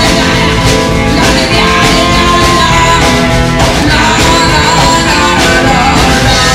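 Live rock-and-roll band playing loudly: hollow-body electric guitar, upright double bass and drum kit.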